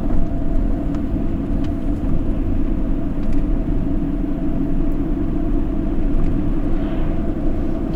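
Steady low road and engine rumble of a refrigerated delivery van driving, heard from inside the cab, with a faint constant hum over it.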